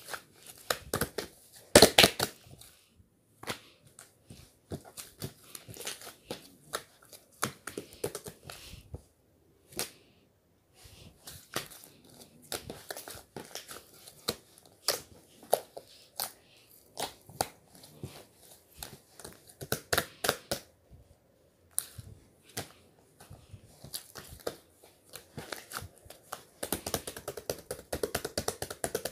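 Irregular close-up handling noises: a string of sharp clicks, taps and rustling, with the loudest clicks about two seconds in and around twenty seconds in, and a dense run of them near the end.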